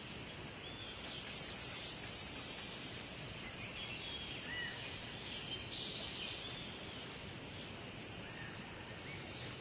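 Birds chirping now and then, with a brief high buzzing trill about a second in, over a faint steady background hiss.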